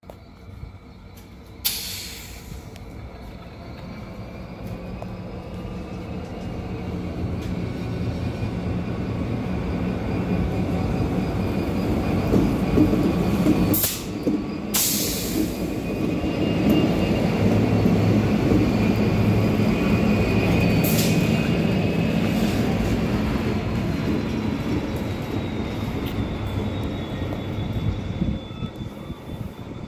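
NSW 82 class diesel-electric locomotives running past as a light-engine consist, their engine drone building to its loudest as they pass and easing off as they move away. A faint high squeal comes from the wheels on the curved track, and a few short sharp clatters stand out, about two seconds in and near the middle.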